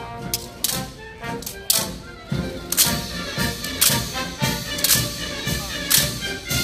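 Military brass band playing, with sharp clacks landing roughly once a second in the second half: the honor guard's rifle drill, hands striking rifles in time.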